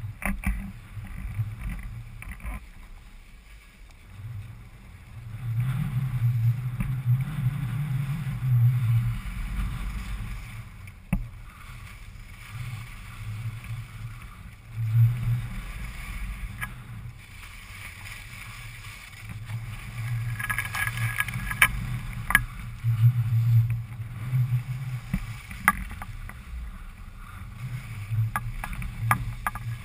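Skis sliding and scraping over groomed snow on a downhill run, with a low rumble that swells and fades and scattered sharp clicks.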